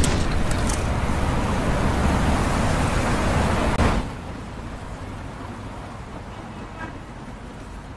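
Road traffic noise: a steady, loud rush that drops suddenly to a quieter street ambience about four seconds in.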